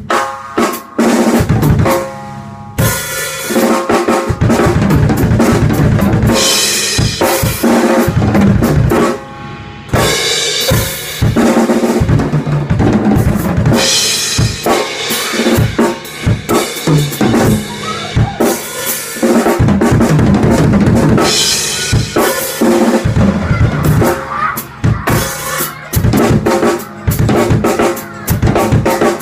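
Drum kit being played: kick, snare and tom fills, with a crash cymbal struck and washing out several times. The kit includes an 18-inch Paiste Reflector Heavy Full crash with two cracks cut out and a refinished 10-inch Pearl tom.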